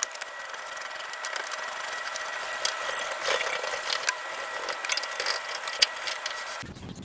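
Scratchy scrubbing and rubbing with many small clicks, as old hydraulic-oil grime is cleaned off the car's hydraulic parts.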